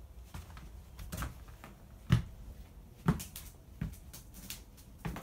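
Footsteps on a floor covered in dried mud and debris: a string of separate thuds and scuffs roughly a second apart, the loudest about two seconds in.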